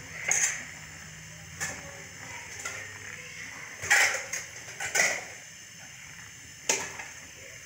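Metal spoon stirring thick milky carrot-and-rice pudding in a metal pot, scraping and clinking against the pot about once a second, about six times.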